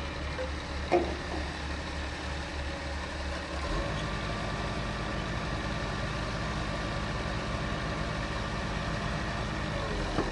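Diesel engine of a Hitachi excavator running, throbbing low at first, then its note steps up and steadies about four seconds in. There is a brief knock about a second in.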